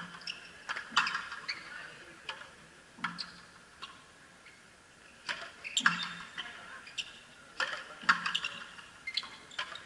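Frontenis rally: a rubber ball smacked by stringed racquets and cracking off the fronton wall and floor. A string of sharp, echoing impacts comes in clusters about one, three, six and eight seconds in.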